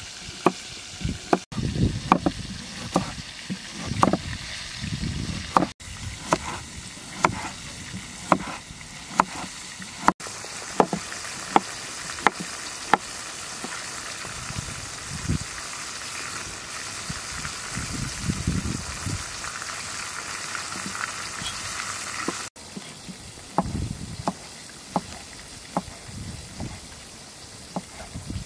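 Kitchen knife slicing carrot and cucumber on a thick wooden log chopping block: irregular sharp taps of the blade striking the wood, about one or two a second, over a steady hiss that is strongest through the middle.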